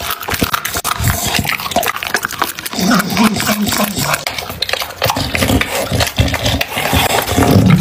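Bully-breed dog chewing and crunching raw chicken with wet smacking and licking, the mouth clicking and crackling over and over. Low throaty sounds from the dog come in about three seconds in and again near the end.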